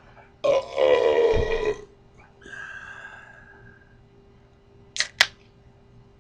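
A man's long, loud beer burp, starting about half a second in and lasting about a second and a half. A fainter pitched sound follows, and two sharp clicks come close together near the end.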